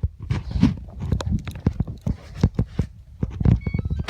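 Footsteps thudding down stairs in quick, uneven steps, with a few faint short high beeps near the end.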